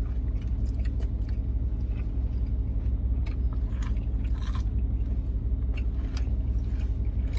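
Close-up chewing and crunching of a crispy-battered Korean corn dog, with short crisp crunches scattered through, over the steady low rumble of a car.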